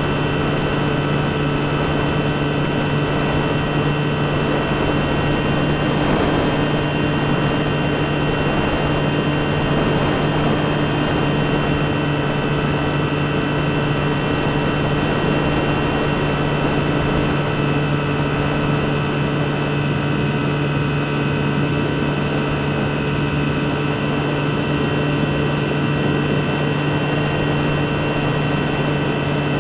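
Skywalker FPV model plane's electric motor and propeller running at steady cruise throttle, heard from the onboard camera as a constant drone with a steady rush of air noise beneath it.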